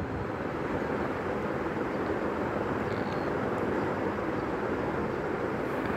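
Steady background rushing noise with no distinct sounds in it.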